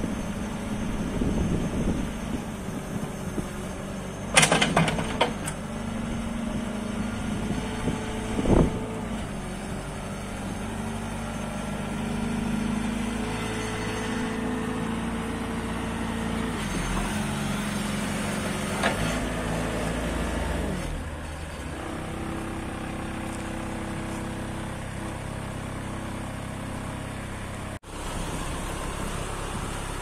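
JCB Midi CX compact backhoe loader's diesel engine running at idle, its speed stepping up and down a few times. A sharp metallic clank comes about four seconds in and a knock a few seconds later.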